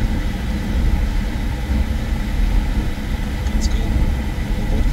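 Car driving, a steady low rumble of road and engine noise, with one brief high-pitched sound about three and a half seconds in.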